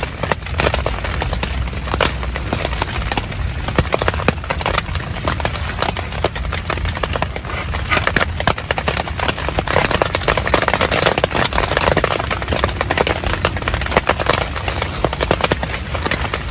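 Heavy rain drumming on a tent, a dense, irregular patter of drops over a steady hiss.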